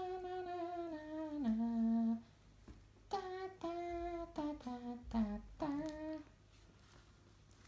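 A person humming a tune. It opens with one long held note that steps down twice, and after a short pause comes a phrase of shorter notes that ends about six seconds in.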